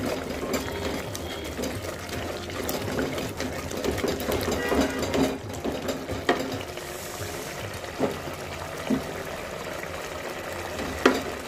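Spinach and meat bubbling in a pot as it is stirred with a spoon, the spoon scraping through the greens and knocking against the pot a few times in the second half. The spinach is being cooked down to dry off the water it has released.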